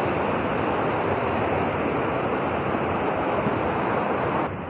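Shallow, fast-flowing stream rushing over rocks: a steady rush of water that cuts off abruptly near the end.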